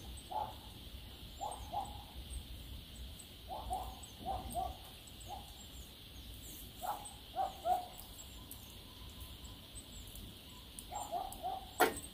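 A dog barking repeatedly, in short bursts of two or three barks a few seconds apart, with one sharp click near the end.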